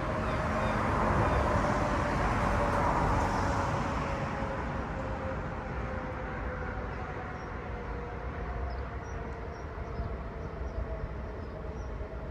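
Grangemouth industrial warning siren sounding a sustained multi-pitched tone that slowly drops in pitch and fades as it runs down at the end of its test.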